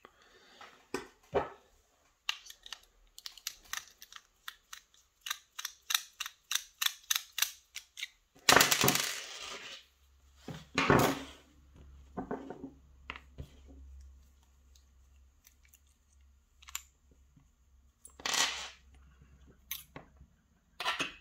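Clicks and metallic scrapes of a challenge padlock being handled and taken apart by hand: a run of small sharp clicks that come faster and faster, then a few louder scraping rattles.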